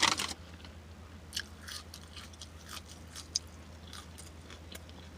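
Close-up chewing of a fried chicken sandwich, with irregular short wet mouth smacks and clicks.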